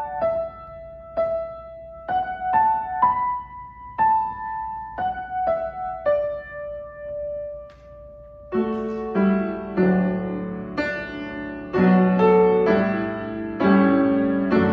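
Grand piano played solo: a slow single-note melody in the middle register for about eight seconds, then fuller chords with bass notes come in.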